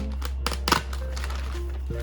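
Soft background music with a sustained low bass note and a few sparse notes. A few short crinkling clicks, like packaging being handled, come about half a second in.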